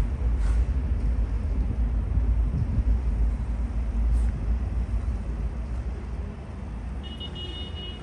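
Low rumble of a passing road vehicle in city traffic, fading about six seconds in. A short high electronic beeping tone sounds near the end.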